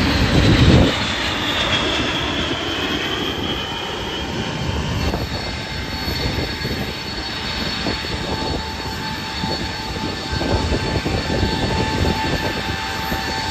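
Jet aircraft passing by: a loud rumble with a high whine that falls in pitch over the first few seconds, then a steady rumble.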